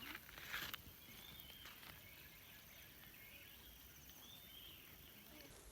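Near silence: faint outdoor ambience with distant bird chirps now and then, and a brief faint rustle in the first second.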